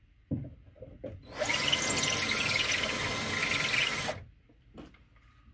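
Black+Decker cordless drill running for about three seconds, its bit wiggled around in a hole through hard plaster and soft drywall to enlarge it slightly, then stopping abruptly. A few light knocks come just before it starts.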